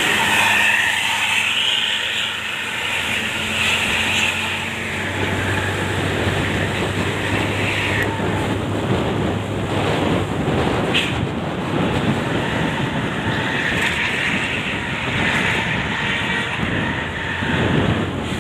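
Heavy diesel vehicle running on the road: a steady low engine hum under a loud, continuous rush of road and wind noise.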